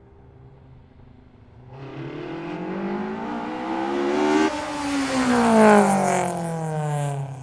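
Car engine revving up, its pitch climbing, then dropping suddenly about four and a half seconds in and falling away. It is loudest just after the drop.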